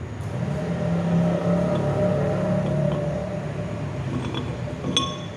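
A passing motor vehicle's engine hum swells and fades over the first three seconds or so. About five seconds in there is a single sharp metallic clink as the metal wheel spacer is worked onto the hub's wheel studs.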